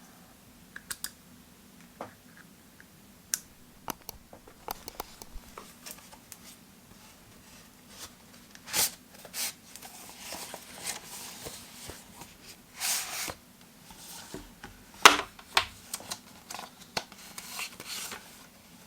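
Scattered clicks and taps with a few short rustling scrapes, from objects being handled; the loudest is a sharp knock about fifteen seconds in.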